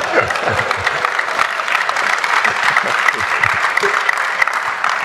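An audience applauding and cheering, with laughter, after a joke; the clapping fades out near the end.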